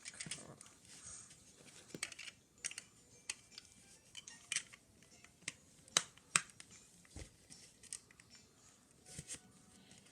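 Plastic Lego bricks clicking and rattling as pieces are handled and pressed together: irregular sharp clicks, the two loudest about six seconds in.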